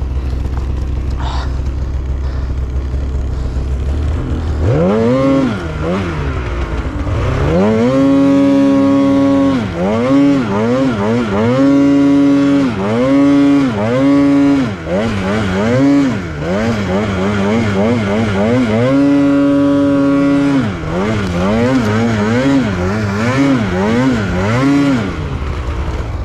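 Polaris Khaos 9R snowmobile's two-stroke twin engine idling low, then from about five seconds in revving hard again and again, the pitch rising and falling with the throttle and held high for a few seconds at a time, as the sled ploughs up through deep powder.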